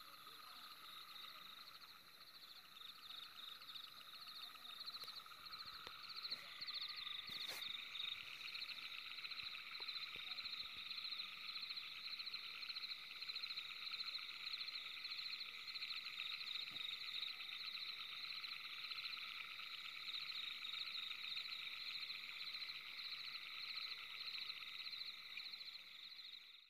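A steady chorus of rapidly pulsing animal calls sitting in several high pitch bands, growing denser and louder about six seconds in. There is one sharp click about seven and a half seconds in.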